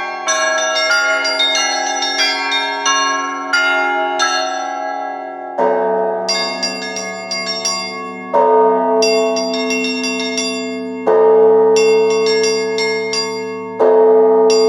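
Orthodox monastery bells ringing: small bells struck in quick patterns, joined about five seconds in by a large, deep bell that strikes four times, roughly every three seconds, under the small bells.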